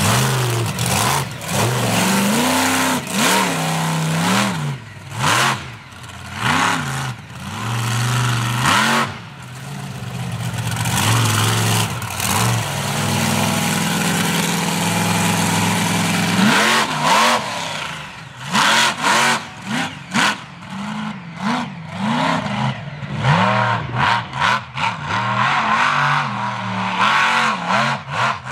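Monster truck engine revving hard, its pitch climbing and dropping again and again as the truck tears across dirt and grass. There is a longer, steadier pull through the middle, then quick throttle blips through the later part.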